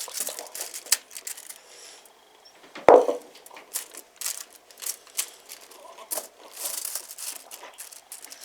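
Crinkling and rustling of food wrapping being handled in short bursts, with one louder dull knock about three seconds in.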